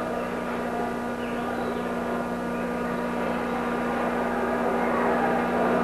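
Arena crowd noise under a steady electrical mains hum from an old broadcast recording, slowly growing louder.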